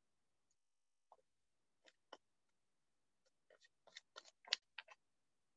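Near silence with a few faint, scattered clicks, most of them coming in a quick cluster from about three and a half to five seconds in.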